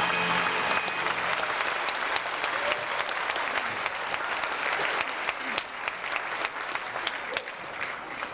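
Audience applauding, the clapping thinning and fading toward the end. The song's music dies away about a second in.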